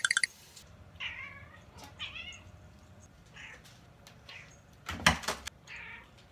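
Ginger Munchkin cat meowing over and over in short, hoarse 'gaa' calls, about one a second. A short clatter of knocks about five seconds in is the loudest sound.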